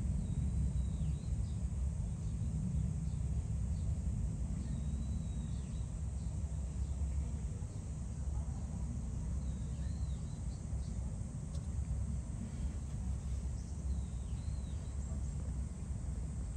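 Steady low outdoor rumble of background noise, with faint high bird chirps a few times.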